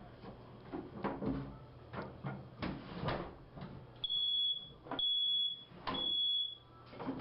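Smoke alarm sounding three long, high beeps in a row, about a second apart, after a few seconds of scattered knocking and rattling.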